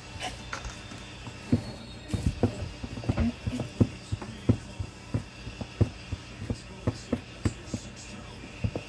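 Fists punching down risen bread dough in a stainless steel bowl: dull, irregular thumps, about two a second.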